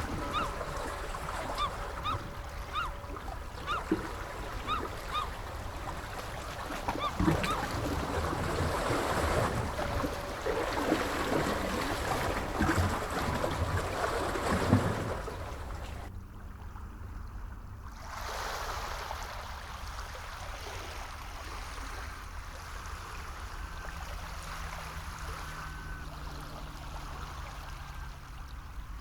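Sea water washing with many birds calling in short, repeated calls over it. About sixteen seconds in the sound drops out abruptly and comes back quieter, with fewer, longer calls.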